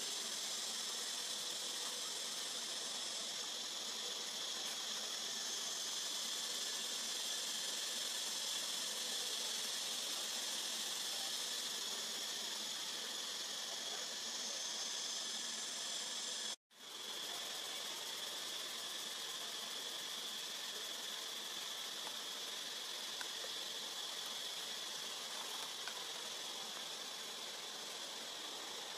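Steady high-pitched drone of insects in forest ambience. A little over halfway through it cuts out abruptly for a fraction of a second, an edit in the recording, then carries on as before.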